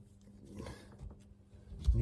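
Faint handling noises from a brake caliper being turned over to fit its new retaining pin, then one dull knock just before the end.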